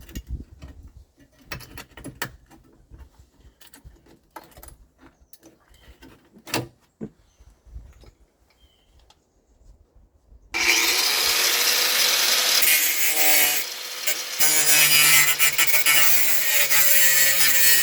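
A few light clicks and knocks of handling, then about ten seconds in a power saw starts up loud and keeps cutting through sheet metal, easing briefly once before carrying on.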